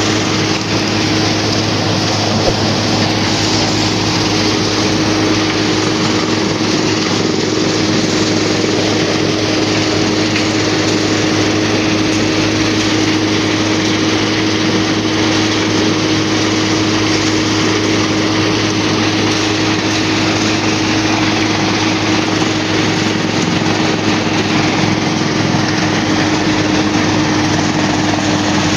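Mahindra 475 four-cylinder diesel tractor driving a thresher through its power take-off, chopping crop stalks into fodder chaff: a loud, steady running with one constant humming tone. The engine is under load from wet stalks, which the operator gives as the reason the tractor was bogging down.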